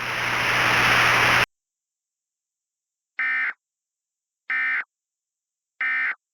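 A burst of hiss that cuts off suddenly, then three short, identical warbling digital data bursts about a second apart: the Emergency Alert System end-of-message (EOM) tones that close the alert.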